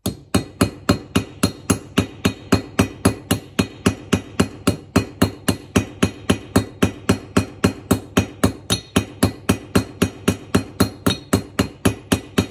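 Hammer striking the end of a 3 mm steel roofing nail held upright in pliers on an anvil, an even run of about four blows a second, each ringing briefly. The nail's end is being peened over into a mushroomed rivet head.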